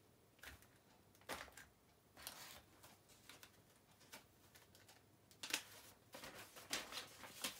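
Faint handling noises on a table: plastic spray bottles set down with light knocks, then sheets of paper rustling and being shuffled in a quicker run of rustles near the end.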